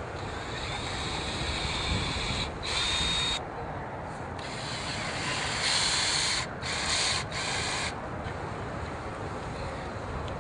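Intermittent rubbing and scraping in several stretches of a second or two as flat wooden strips are laid across a coiled black water hose, with a brief squeak about three seconds in.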